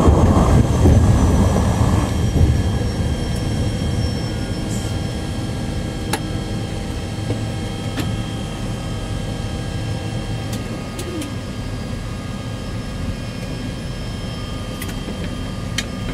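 de Havilland Canada Turbo Otter floatplane's turboprop engine heard from inside the cabin as the plane slows on the water after landing. A loud rushing noise dies down about two seconds in, leaving a steady turbine whine with several high tones while the overall level slowly falls.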